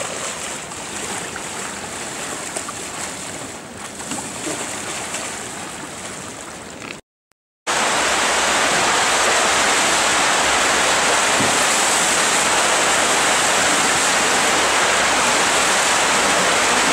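Water noise around a slalom kayak being paddled on flat water. After a brief cut to silence about seven seconds in, a loud, steady rush of whitewater churning through an indoor artificial slalom channel.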